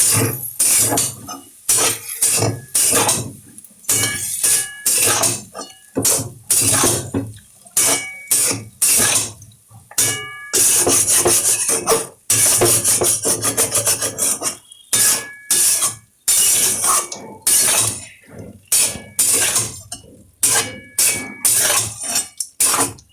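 Metal spatula stirring a curry in a metal cooking pan, scraping and knocking against its sides about twice a second, each knock leaving a brief metallic ring.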